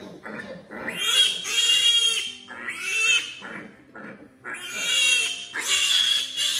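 A restrained piglet squealing in loud, shrill, drawn-out screams, about one a second, in distress as it is surgically castrated with a knife.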